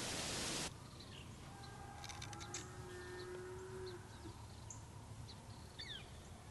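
A loud hiss of wind stops abruptly within the first second. Then a distant cow moos once, a long low steady call of under two seconds, with faint bird chirps around it and a bird call sliding downward near the end.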